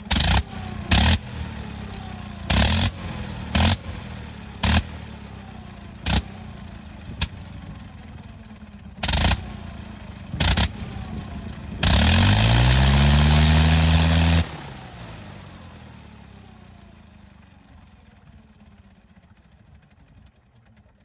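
Nine-cylinder Gnome Monosoupape rotary engine of a Fokker Eindecker firing in short loud bursts, about one every second, as the ignition is blipped on and off, with the propeller windmilling in between. About twelve seconds in it runs flat out for two and a half seconds, rising in speed, then cuts out and fades away as the engine and propeller spin down.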